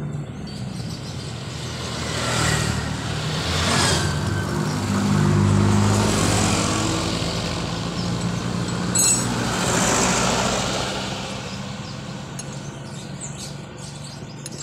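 Engine running under load and revving up and down several times, swelling about two and a half, six and ten seconds in. There is a brief rattle of clicks about nine seconds in.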